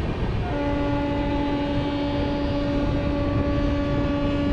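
Running noise of a moving passenger train, with a train horn sounding one long, steady note from about half a second in.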